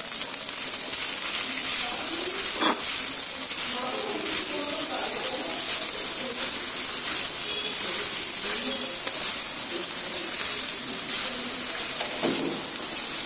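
Cooked rice sizzling in hot oil with a mustard-seed, urad dal and peanut tempering in a kadhai as it is stirred with a spatula: a steady hiss, with a couple of spatula scrapes against the pan.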